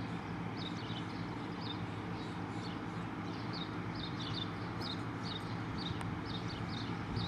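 Pump engine running at a steady drone, with repeated short high chirps over it, about two or three a second.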